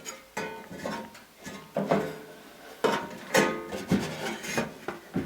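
Metal cantilever toolbox trays being swung open: a series of clanks and knocks of sheet metal, each briefly ringing, about ten in all.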